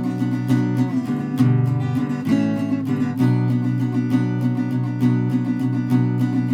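Strummed acoustic guitar playing chords in a recorded music track, with a chord change from about one and a half seconds in to about three seconds in.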